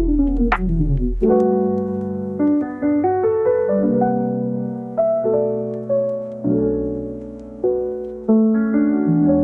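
Background piano music: notes and chords struck about once a second, each fading away before the next.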